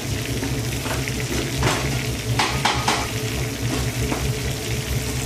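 Sliced onion, mushroom and leek sizzling in melted butter as they start to sweat, with a few short knocks and scrapes of stirring about two to three seconds in, over a steady low hum.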